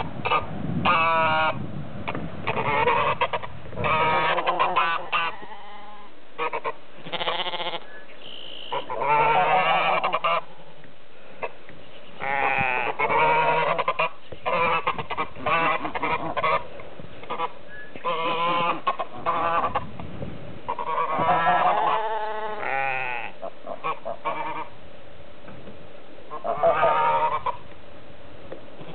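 Domestic geese honking over and over in bouts a second or two long, clamouring for their feed.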